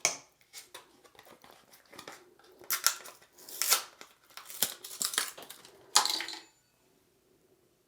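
Hands pulling the old rubber seal off a Fluidmaster 400 toilet fill valve cap and handling the parts: a run of irregular rustles, crinkles and small clicks that stops about six and a half seconds in.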